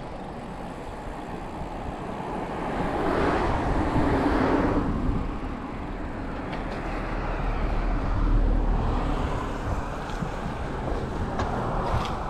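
Wind rushing over the microphone of a moving bicycle, with two cars passing one after another in the oncoming lane, the first swelling up about three seconds in and the second around eight seconds in.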